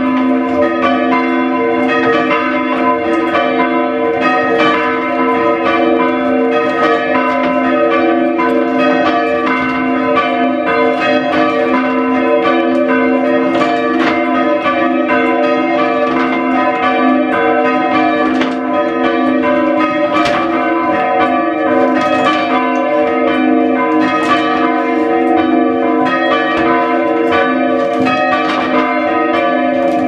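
A ring of three English church bells rung full circle, tenor about 6 cwt, struck one after another in a continuous round-like pattern. The bells are slightly out of tune with one another.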